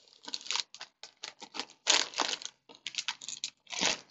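Potato chip bag crinkling and crackling in short, irregular bursts as a handheld mini heat sealer is drawn along its top edge to melt it shut.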